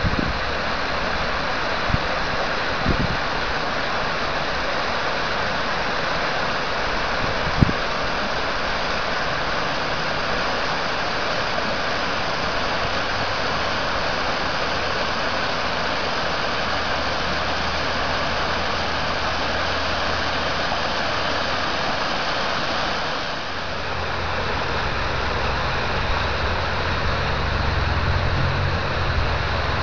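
River water rushing through and over a partly demolished concrete dam, a steady whitewater rush. A single sharp click comes about eight seconds in, and a low steady hum comes in underneath past the middle, growing louder near the end.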